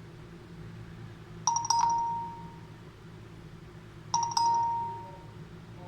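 A doorbell-like electronic chime sounding twice, about two and a half seconds apart. Each chime is a quick double strike on one ringing tone that fades away.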